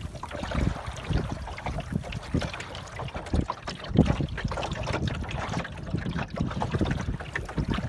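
Water lapping and trickling against the wooden hull of a small sailboat under way, with irregular small splashes and slaps along the planking.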